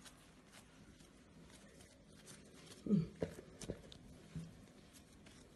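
Quiet room tone with soft handling sounds as a ball of dough is set into an oiled plastic bowl: a few faint clicks and taps a little after three seconds in. A brief low vocal murmur comes about three seconds in.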